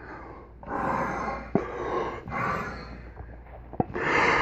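A bagpipe bag being blown up through the blowpipe, in about four long breathy blows, with a couple of short clicks between them.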